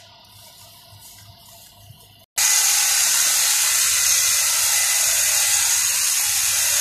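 Makita cordless hedge trimmer running and shearing through a small-leaved shrub. It is a loud, steady hissing noise that starts abruptly about two seconds in, after only a low background.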